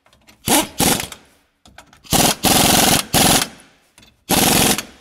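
Impact wrench hammering in about six short bursts as it runs nuts down onto a leaf-spring U-bolt, fastening a track system's rear limiting bracket.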